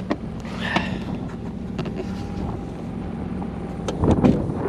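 Steady low hum of an engine running, with scattered knocks and clicks and a brief rustle about half a second in.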